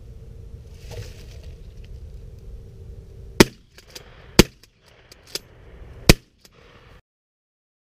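Shotgun fired three times during a dove hunt, the shots about a second and then a second and a half apart, over low wind rumble on the microphone.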